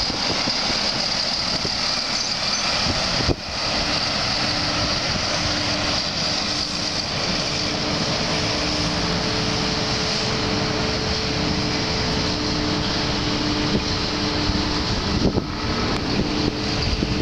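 Diesel articulated lorries on the road: one pulls past close by, then after a sudden break a few seconds in, a steady engine drone of more lorries approaching under constant traffic noise.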